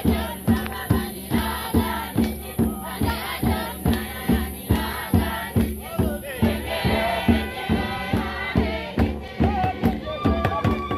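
Traditional dance music: a group of voices singing and chanting together over a steady drumbeat of about two to three beats a second. A steady held note joins near the end.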